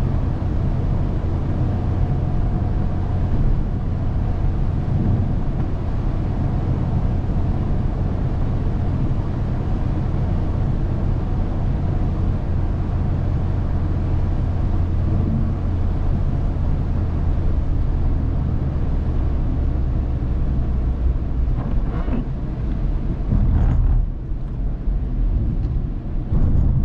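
A car driving: steady, loud low rumble of engine and road noise, with a few brief sharp sounds near the end.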